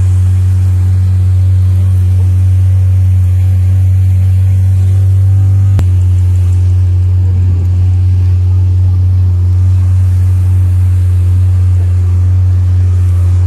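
Motorboat engine running steadily at cruising speed, heard on board as a constant low drone.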